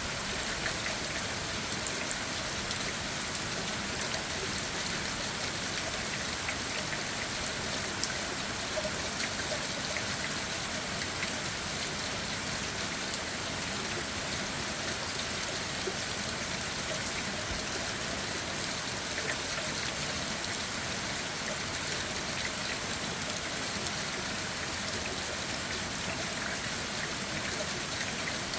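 Steady rain falling on forest leaves and ground, an even hiss with many small scattered drop taps.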